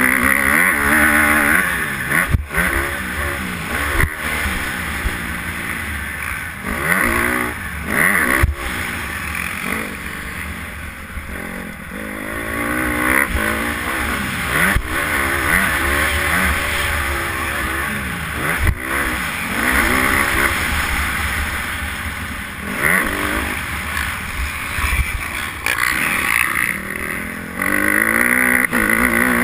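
Honda motocross bike's engine revving hard and falling off again and again as the rider works the throttle and shifts gears, heard from on board. A few sharp thumps break in along the way.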